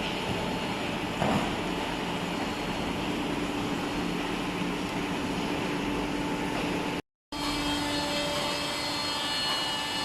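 Horizontal waste paper baler running: a steady mechanical hum with a few whining tones. There is a brief knock about a second in, and the sound cuts out for a moment about seven seconds in, after which higher whining tones come through.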